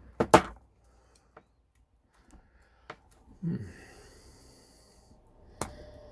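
Small hand tools working solar cable: a few sharp clicks and snaps, the loudest just after the start and another near the end, with a short soft hiss in the middle.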